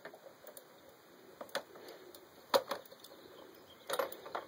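A socket tool clicking and clinking against the spark plug as the 19 mm plug is spun out of a flooded concrete cut-off saw's engine: a handful of short, sharp metallic clicks, two of them in quick pairs.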